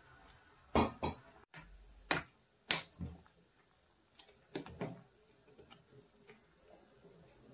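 Wooden spoon knocking against the side of a yellow aluminium pot while stirring soup: about seven sharp knocks, some in quick pairs, over the first five seconds, the loudest near the middle, then a few faint ticks.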